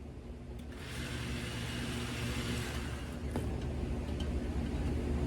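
A steady motor hum and whir that grows gradually louder, with a few faint clicks.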